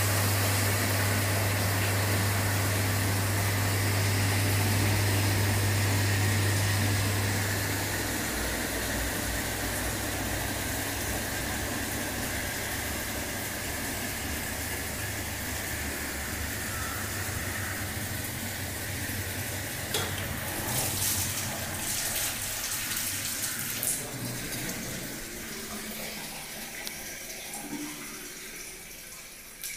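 Water rushing from the stainless steel nozzles of a 20-litre jar filling line into the jars, over a strong low electric hum that drops away about eight seconds in. The water noise swells with a few sharp knocks and splashes between about twenty and twenty-four seconds in.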